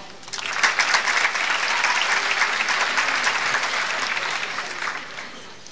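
Audience applauding, a dense patter of many hands clapping that starts right away and fades out near the end.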